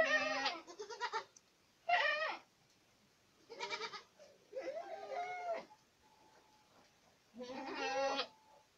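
Young Boer goats bleating: about five separate wavering calls, each under a second, spaced out with short gaps. The first two overlap at the start.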